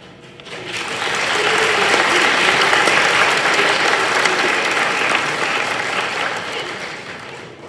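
Audience applauding. The clapping builds up about half a second in, is strongest in the middle and tapers off near the end.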